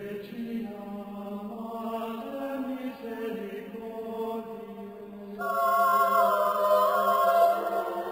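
Slow singing with long held notes, like a chanted hymn; the sound grows fuller and louder about five seconds in.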